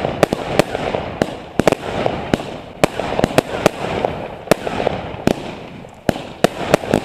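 Fireworks and firecrackers going off: many sharp bangs at irregular intervals, several a second, over a continuous background of distant bangs and crackle.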